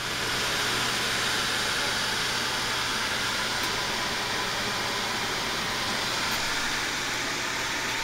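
An electric fan running steadily: an even rush of air with a low hum beneath it.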